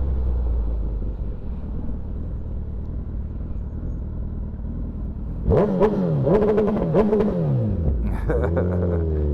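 Suzuki Hayabusa's inline-four engine running steadily under way, then, about five and a half seconds in, revved hard several times, the pitch rising and falling with each blip and with sharp crackles, and revved again near the end.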